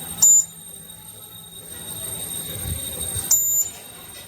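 The buzzer of a homemade laser-beam security alarm sounding twice in short, high beeps: a brief one near the start and a longer one about three seconds in, each beginning with a click.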